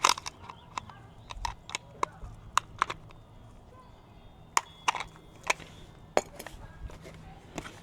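Irregular sharp clicks and clacks of hard plastic and a metal aerosol can knocking together as a spray can is fitted into a snap-on spray-can trigger grip.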